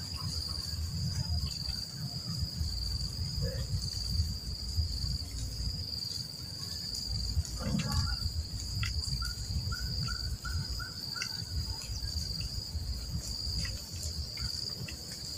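Steady high-pitched drone of insects such as crickets or cicadas, over a low rumbling noise, with a short run of faint chirps about ten seconds in.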